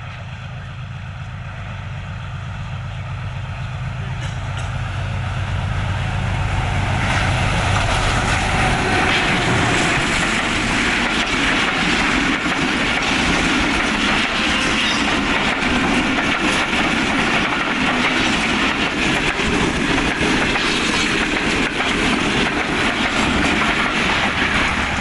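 Diesel locomotive of an express passenger train approaching with a low engine drone that grows louder. From about seven seconds in, a long run of passenger coaches passes close by at speed, with a loud, steady rush and clatter of wheels on the rails.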